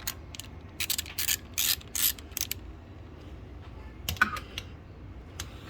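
Hand socket ratchet clicking in a run of short strokes as screws are backed out of the engine, then a single sharp knock about four seconds in, followed by a few light clicks.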